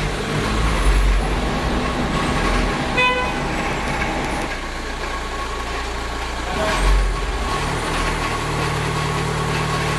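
Volkswagen Transporter engine running with a steady whirring noise that the mechanic attributes to the flywheel: it comes with the clutch released and goes away when the clutch is pressed. A short horn toot sounds about three seconds in.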